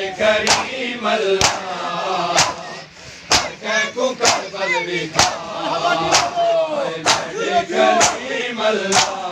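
A group of male voices chanting devotional verse together over a sharp, steady beat about once a second.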